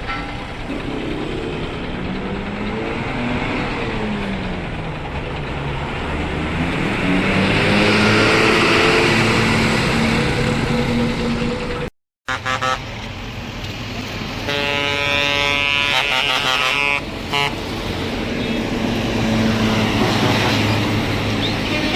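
Hino bus engine running, its pitch rising and falling as it revs, with a brief cut in the sound about halfway. About two-thirds in, the bus horn sounds for roughly two and a half seconds, followed by a short toot.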